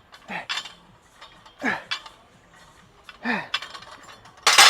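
A man grunting with effort on each rep of a barbell set, about every second and a half, as the loose unclipped weight plates clink on the bar. Near the end there is a loud metal clank as the barbell is set down.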